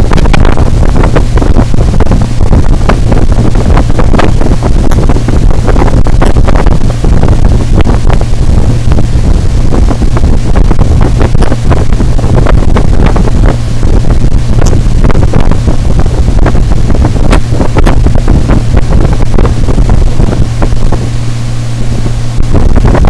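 Loud wind buffeting on the camera microphone over the steady drone of a 50 hp Mercury CommandThrust outboard pushing a small powerboat at speed across the water.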